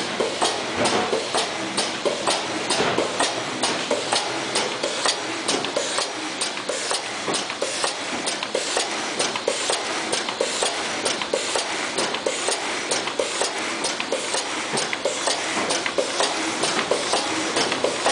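T-shirt plastic bag sealing and cutting machine running, clacking in a fast, even rhythm of about two to three strokes a second over a steady mechanical hiss as it seals and cuts the film into bags.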